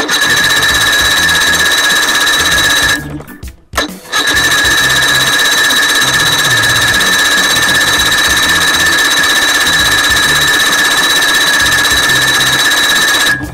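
Electric starter of a Johnson two-stroke outboard cranking the engine with a loud, steady whine: one run of about three seconds, a short pause, then a long run of about nine seconds. The engine turns over but never fires, the ignition fault still not cured by the rebuilt ignition.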